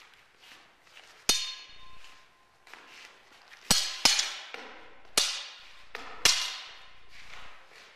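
Arming swords clashing blade on blade in sparring: five sharp ringing strikes. The first comes a little over a second in, then four more follow over the next few seconds, two of them in quick succession.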